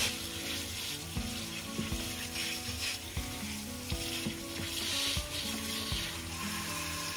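Water spraying from a hose nozzle onto an engine bay, a surging hiss and spatter as the foaming engine cleaner is rinsed off. Background guitar music plays underneath.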